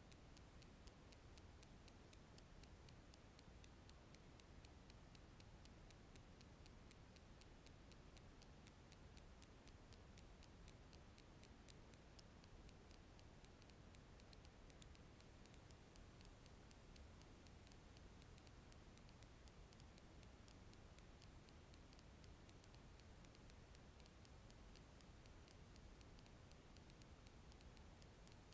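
Near silence: a faint hiss with a faint, fast, regular ticking.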